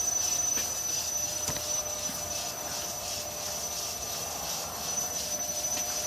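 Wood lathe running with a large mesquite log spinning on it: a steady motor hum with a thin, high whine held throughout.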